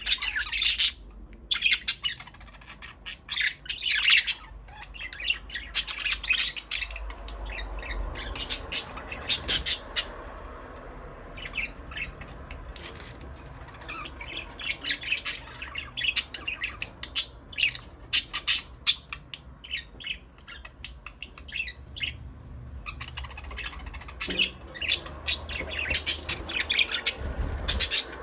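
Budgerigars chirping and squawking, a busy run of short, quick calls that thins out in the middle and picks up again near the end.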